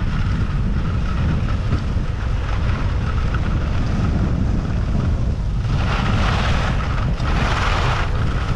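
Wind rushing over a GoPro's microphone while skiing down a groomed cat track, with a steady low rumble of skis running on snow. A little past the middle come two louder, hissing scrapes of about a second each, like ski edges biting on firm snow in turns.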